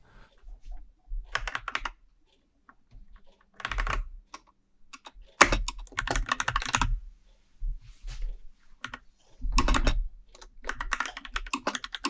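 Typing on a Freewrite 3rd Generation Smart Typewriter's mechanical keyboard: quick runs of key clicks in irregular bursts, with short pauses between them.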